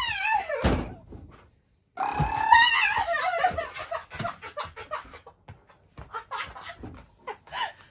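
A woman laughing and squealing in short bursts while a Great Pyrenees jumps at her, with two heavy thuds about a second apart early on.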